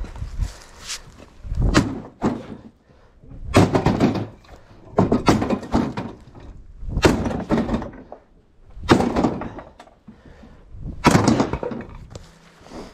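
Sledgehammer blows busting up debris: a series of about seven heavy strikes one to two seconds apart, each followed by a short crash of breaking material.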